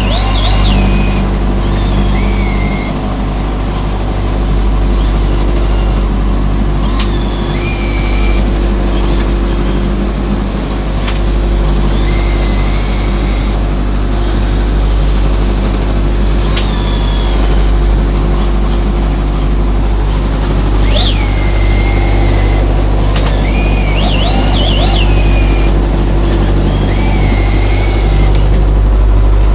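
Motorboat engine running at a steady drone under way, with short high-pitched squeaks every few seconds.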